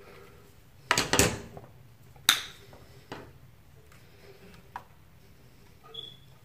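Handling noise of green-and-yellow earth sleeving and copper wires being worked at a metal back box: a short rattling clatter about a second in, then a sharp click and a few smaller clicks.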